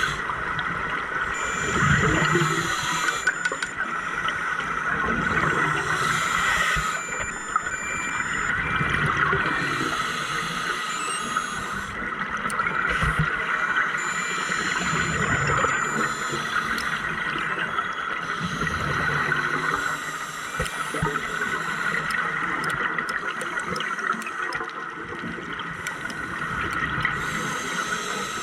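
Underwater sound of a scuba diver's regulator breathing, with gurgling exhaled bubbles returning every few seconds over a steady water hiss.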